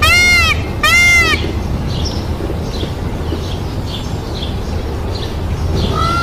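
Indian peafowl calling: two loud, arched, nasal calls in quick succession at the start and another beginning near the end, with faint high chirps in between.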